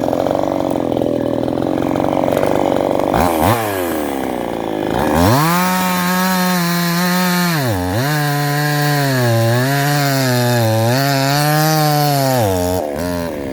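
Cheap Chinese 372XP-clone two-stroke chainsaw cutting oak. It revs up about three seconds in and runs near full throttle, its pitch sagging and recovering several times under the load of the cut, then drops off near the end.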